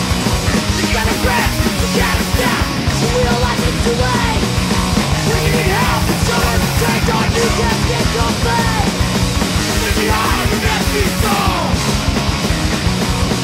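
Hardcore punk band playing at full tilt: distorted electric guitars, bass and fast drums, loud and unbroken.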